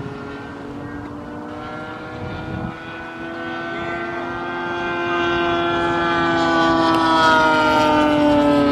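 Engine of a radio-controlled scale P-26 Peashooter model airplane in flight, with a steady buzzing note. It grows louder over the second half as the plane passes close, and its pitch drops near the end as it goes by.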